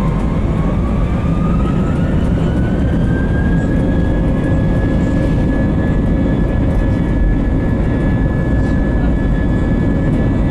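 The IAE V2500 turbofan engines of an Airbus A320 spooling up to takeoff thrust, heard from inside the cabin. A whine climbs in pitch over the first three seconds or so, then holds steady over a loud, dense rumble as the takeoff roll begins.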